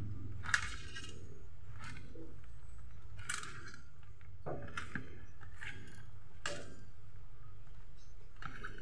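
Bare hands squeezing and kneading shredded banana blossom in a metal tray: irregular short scrunching strokes, about one every second or so, with light clinks. A steady low hum runs beneath.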